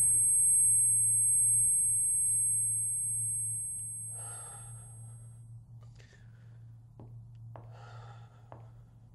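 A sustained low electronic drone with thin high tones fades out over the first four seconds or so. Then a man breathes out heavily twice, about four and eight seconds in, with a few faint clicks between.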